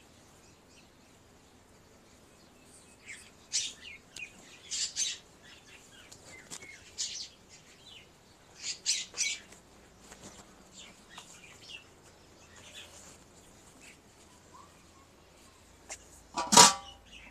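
Small birds chirping in short, scattered calls, with one brief louder sound near the end.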